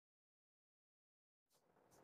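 Near silence: dead silence for the first second and a half, then only faint room tone.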